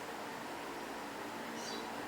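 Steady background hiss with a faint hum, and one brief high-pitched chirp about one and a half seconds in. No knocks or clicks are heard.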